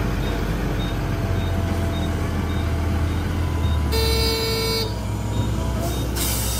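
Heavy diesel engine running steadily under load, with a single short horn toot about four seconds in and a brief hiss near the end.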